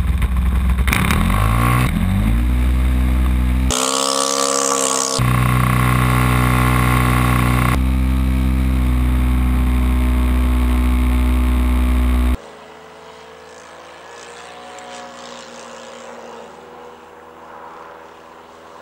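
Engine of a radio-controlled model Cessna at full throttle on its takeoff run, heard loud from a camera mounted on the plane, its pitch climbing in the first few seconds. About two-thirds of the way through it drops suddenly to a faint, wavering drone of the plane flying high overhead.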